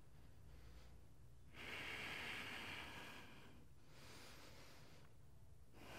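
Faint breath of a person doing a yoga stretch: one slow, audible breath of about two seconds starting about one and a half seconds in, and another beginning near the end.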